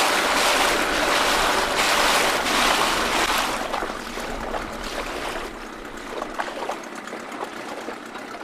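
Water rushing and splashing, as from a boat moving through it, loud at first and dropping to a quieter rush about three and a half seconds in.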